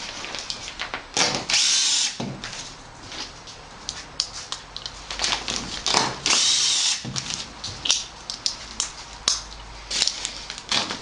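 A power drill drives #8 hex washer-head self-drilling screws through insulation fastener discs and duct wrap into the duct, running in several short bursts, the two longest about a second each, one about a second in and one about six seconds in, with handling clicks between.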